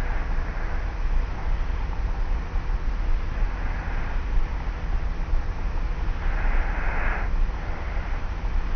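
Light snoring of a person asleep on their back: three soft snoring breaths, about every three seconds, over the steady low hum and hiss of a tape-recorder recording.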